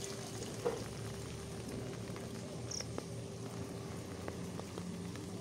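Rainwater trickling and splattering out of a tipped-over clay flowerpot onto waterlogged ground, a steady soft water noise with a faint hum under it and a couple of light knocks.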